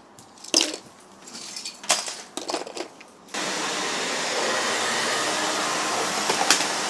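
A few clicks and clatters of plastic toy blocks being handled, then from about three seconds in a canister vacuum cleaner running steadily.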